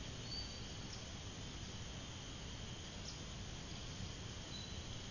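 Steady insect buzz from the swamp-side vegetation, over a low outdoor rumble, with a few brief high chirps.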